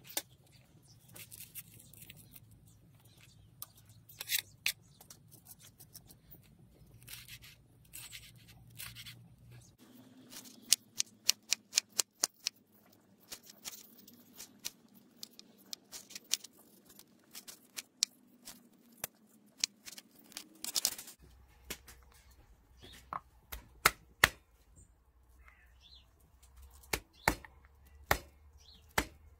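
Kitchen knife chopping on a wooden cutting board as chillies and ginger are sliced: quick runs of sharp knocks, with pauses between runs.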